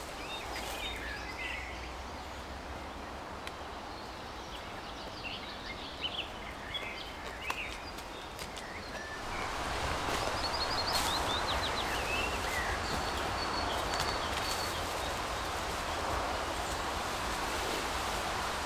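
Woodland ambience: small birds chirping and singing, with light rustling of leaves and undergrowth. About nine seconds in, the rustling grows louder and steadier, and a quick trilling bird call stands out.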